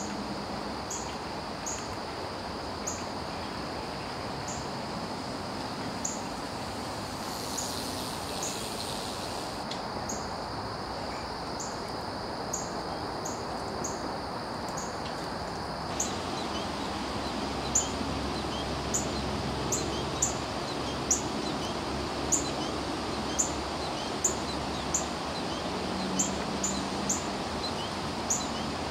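A small bird giving short, high chip calls, repeated about once a second and getting louder and quicker about halfway through, over a steady hiss of outdoor background noise.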